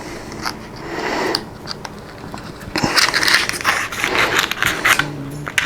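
Stiff plastic packaging of a RAM kit being handled and pried open: irregular crackling and clicking, in two bouts.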